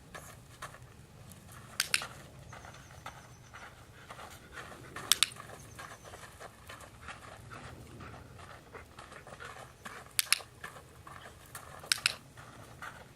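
A dog panting while a training clicker sounds four times, each a quick double click.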